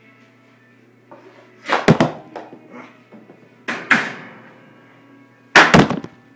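Three mini hockey shots about two seconds apart. In each one, a mini composite stick cracks against the ball or puck on a hard tile floor, followed at once by a few quick knocks as the shot hits the small goal and netting.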